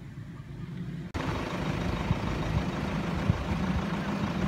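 Vehicle running noise, engine and road: a low rumble that jumps abruptly louder and hissier about a second in, then runs on steadily with a few short low thumps.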